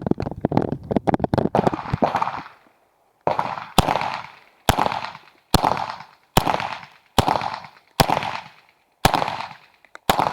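Uzi Pro 9 mm pistol firing: a quick string of shots for the first couple of seconds, then after a brief pause about eight single shots at a steady pace of roughly one a second, each with a short echoing tail.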